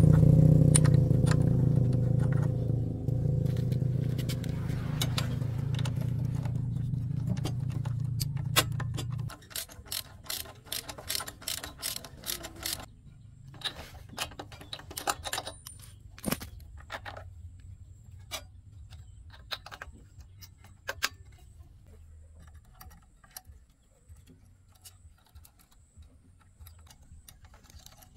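Small generator engine running steadily, then cutting off abruptly about nine seconds in. After that, scattered light clicks and taps.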